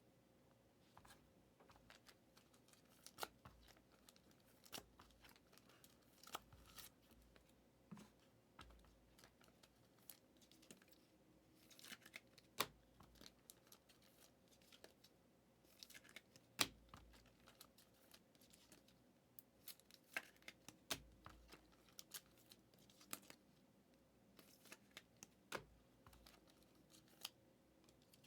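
Faint, scattered clicks and short rustles of trading cards and pack wrappers being handled and sorted.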